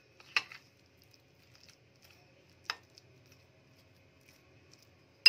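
A spoon mixing a thick spice-and-cornflour marinade paste in a glass bowl: soft stirring with a few sharp clinks of the spoon against the glass, the loudest at the end.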